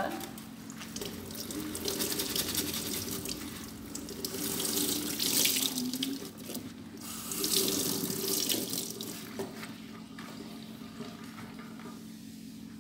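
Water running from a kitchen tap into a sink, swelling louder and easing off three times, then stopping near the end.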